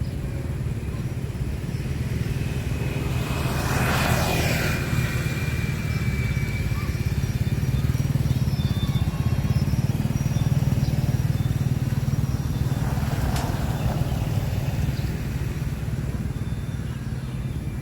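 Road traffic: a steady low engine rumble, with vehicles passing by. The loudest pass is about four seconds in and a smaller one comes near thirteen seconds.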